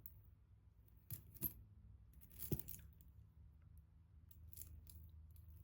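Costume jewelry clicking and clinking as it is handled: three sharp clicks in the first three seconds, then a few faint ticks.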